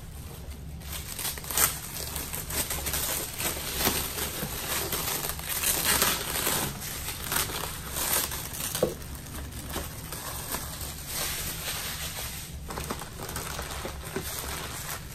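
Packaging crinkling and rustling as it is handled, in irregular bursts that die down near the end.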